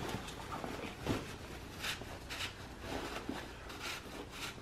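Rustling and scraping of jacket fabric and mesh lining against the plastic fan housings as a fan unit is worked into its opening in the back of a fan-cooled jacket, in short irregular bursts. The fans are not running.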